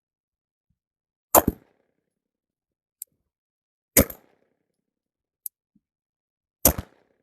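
Three shots from a SIG P320 X5 pistol in slow aimed fire, evenly spaced about two and a half seconds apart, with faint sharp ticks between them.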